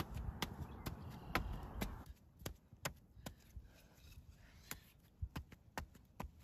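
Irregular sharp wooden clicks and knocks as a thin stick is pushed and worked into dry, twiggy ground, over a low rushing noise that cuts off about two seconds in.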